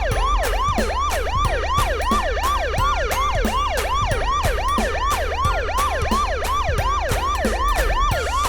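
Police car siren wailing in fast, even up-and-down sweeps, about two and a half a second, with no break.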